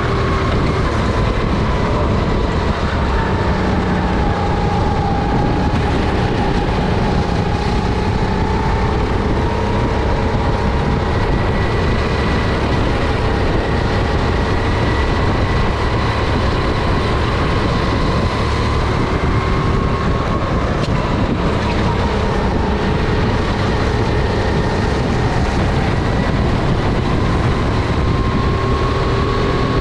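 Honda GX270 single-cylinder four-stroke engine of a SODI RT10 rental kart running at speed, its pitch dropping and building again a few times as the revs change around the lap.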